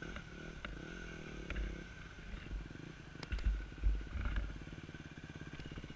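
Dirt bike engine running at low revs with a steady putter, revving up slightly near the start, with a few dull knocks.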